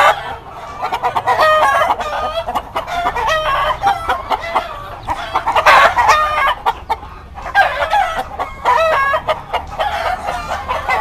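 A flock of chickens clucking and roosters crowing, many birds calling over one another without a break, with one loud call about six seconds in.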